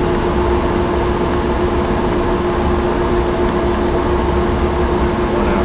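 Steady hum and rushing air of ventilation fans, with one constant tone throughout and no starts, stops or impacts.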